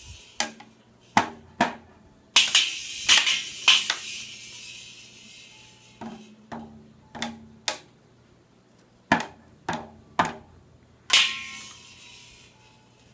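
A baby hitting a toy drum set with drumsticks in irregular bursts: short, thin drum hits and a few crashes on the toy cymbal that ring on briefly, with pauses of a second or two between bursts.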